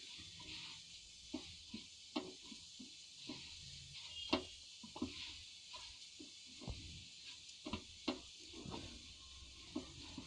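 Hands kneading wheat-flour dough in a stainless steel bowl: irregular soft squelches and light knocks against the bowl, over a steady faint hiss.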